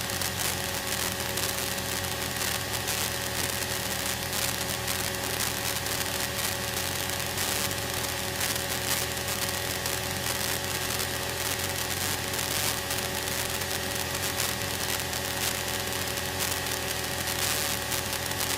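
Cessna light aircraft's piston engine and propeller droning steadily in flight, heard inside the cabin over the rush of air.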